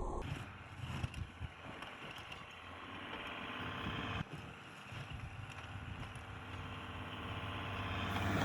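Snowplow truck running while plowing: a steady rushing noise over a low engine hum, changing abruptly about four seconds in.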